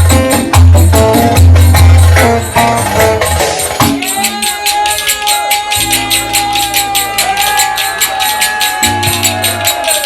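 Turkish folk music dominated by jingling zil (tambourine-type metal jingles) struck in a steady rhythm. For the first four seconds a pulsing bass beat drives it; then a long held melodic note takes over while the jingles keep going.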